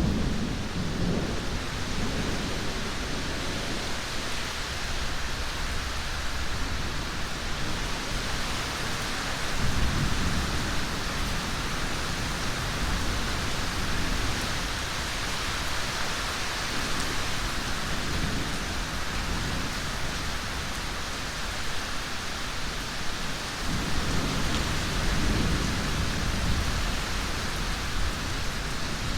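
Steady heavy rain, with low rolls of thunder rumbling under it: one fading at the start, another about ten seconds in, and a longer one near the end.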